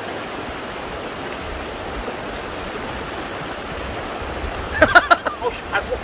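Shallow mountain stream running over rocks, a steady rush of water. About five seconds in, a quick cluster of sharp splashes as someone wades in.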